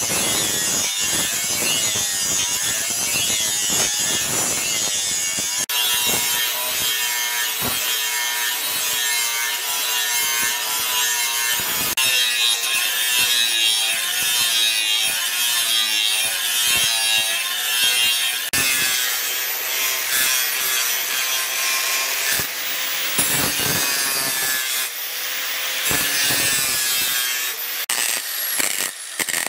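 Electric angle grinder with an abrasive sanding disc grinding a steel knife blade: a continuous motor whine over a harsh rasp, its pitch wavering as the disc bites. The tone changes abruptly a few times.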